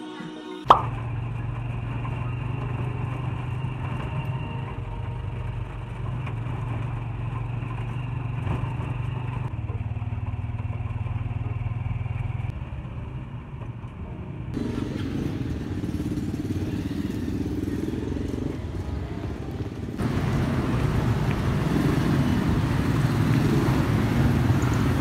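Jeepney engine running steadily, heard from inside the passenger cabin as it drives, with a sharp knock about a second in. The rumble gets louder over the last few seconds.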